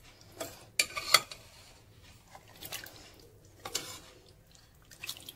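A metal spoon stirring thick mutton curry in a steel pressure-cooker pot, giving a few light scrapes and clinks against the pot, the loudest about a second in.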